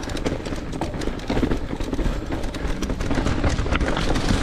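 Santa Cruz Nomad full-suspension mountain bike riding fast over a rough, rocky trail: tyres crunching on dirt and rock with a constant clatter of rattles and knocks, and wind rumbling on the action-camera microphone.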